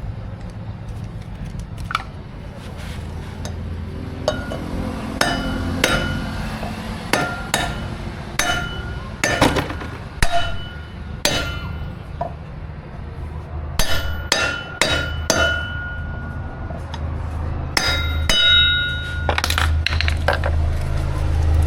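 Hammer striking metal to drive new wheel bearings into a scooter's rear hub: a couple of dozen irregular taps and blows, many ringing briefly, in clusters. A steady low hum runs underneath.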